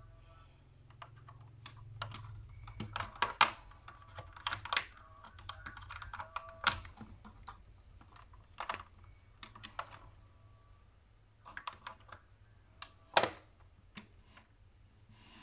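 Hard plastic toy parts clicking and clacking as small astronaut figures are pushed into a toy spaceship's seats, a quick irregular run of small knocks. One loud plastic snap near the end, as the spaceship's clear canopy is shut.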